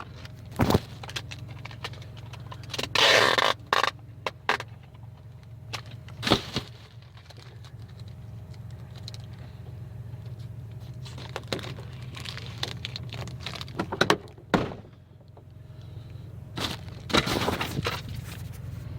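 Clear packing tape pulled off the roll in several separate strips, the longest pull about three seconds in, with knocks and crackling as the tape is pressed onto a clear plastic sheet. A low steady hum runs underneath.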